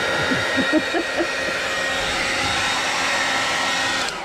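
Handheld hair dryer running steadily with a thin whine in it, switched off and cutting out abruptly right at the end.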